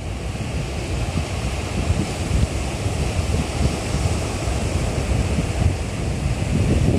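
Sea waves washing onto a beach in a steady surf wash, with wind buffeting the microphone in heavy low rumbles.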